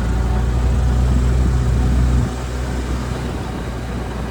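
Vehicle engine running steadily while driving slowly over rough farm ground, heard from on board; the low drone drops in level a little over two seconds in as the throttle eases.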